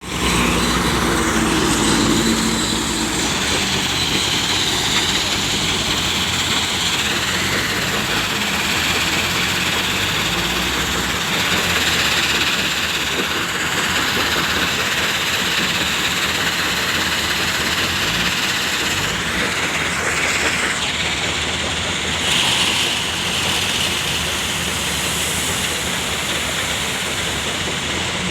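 Heavy truck on the move: steady engine and road noise.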